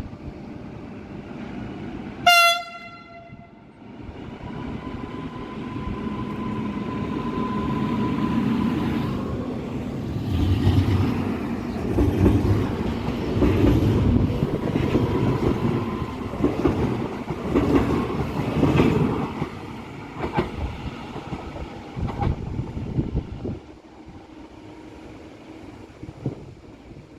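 A train sounds one short, loud horn blast. It then passes below with a rising rumble, wheel clatter and a steady whine, and the noise drops away near the end.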